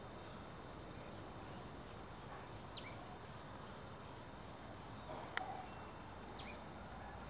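Quiet outdoor ambience with a steady low hiss, in which a bird gives two short, quickly falling calls about four seconds apart. A single sharp click, the loudest sound, comes a little after the middle.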